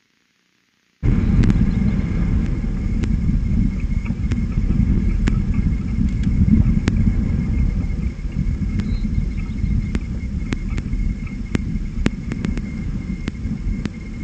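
A loud, uneven low rumble that cuts in abruptly about a second in, with faint scattered clicks over it.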